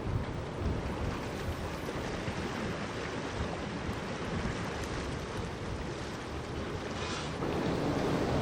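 Wind buffeting the microphone over a steady rushing noise, getting louder near the end.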